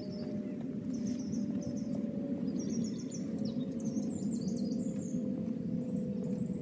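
Outdoor ambience: birds chirping in short repeated high notes over a steady low rumble, with a faint hum that slowly falls in pitch.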